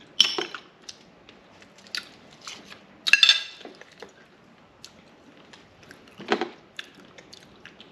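Metal spoon clinking against a ceramic plate and bowl: a few separate clinks and handling sounds, the loudest a sharp ringing clink about three seconds in.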